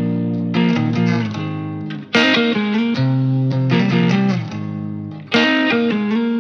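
Intro music: a plucked electric guitar riff in repeating phrases.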